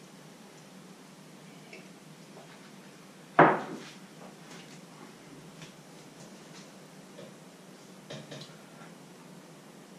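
A single sharp clatter of kitchenware set down hard about three and a half seconds in, ringing out briefly, then a few faint clicks of cookware near the end.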